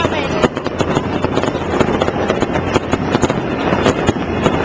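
Fireworks going off in rapid succession: dense, continuous crackling and popping.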